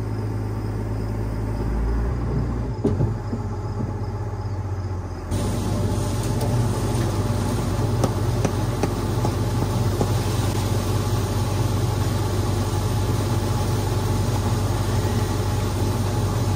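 A vehicle engine running steadily with a low hum. About five seconds in, the sound jumps to louder and brighter, with more rattle and noise on top of the hum.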